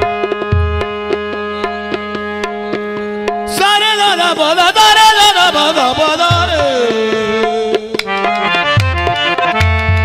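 Qawwali ensemble of harmonium and tabla playing between sung lines: steady held reed chords over a regular tabla rhythm with deep bass strokes. From about three and a half seconds in, a voice sings a wordless, wavering melodic phrase over the accompaniment.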